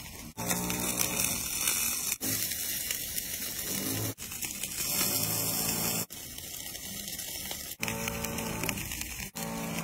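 Glazed food sizzling on a grill rack over glowing coals: a bright hiss with a low steady hum under it, cut off abruptly and restarting about every two seconds.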